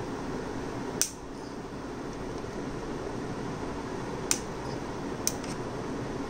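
Steady fan-like background noise with three sharp clicks, about a second in, then twice more about a second apart near the end, from a small metal device being handled.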